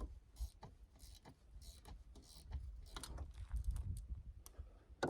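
Scattered small clicks, taps and rustling of tools and parts being handled while the exhaust is taken off a Stihl 462C chainsaw, with a few low thumps.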